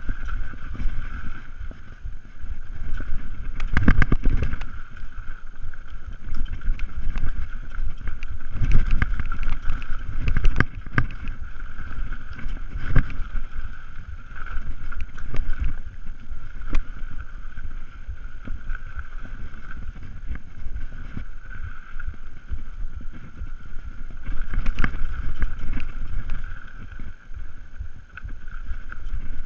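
Mountain bike riding fast down a dirt forest singletrack, heard close up: wind buffeting the microphone and a constant rumble, with rattles and knocks as the bike hits bumps, loudest about four, nine and thirteen seconds in. A steady high hum runs underneath throughout.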